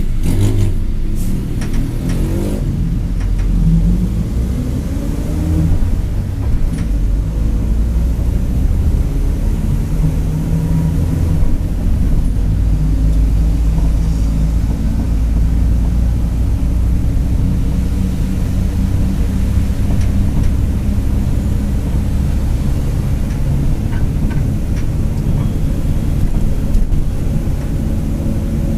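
Mercedes-Benz OF-1721 bus's four-cylinder diesel engine pulling as the bus drives, its note rising in the first few seconds and shifting with speed through the gears. A growling differential, the fault the recording is made to show, runs under it, with a thin higher whine near the end.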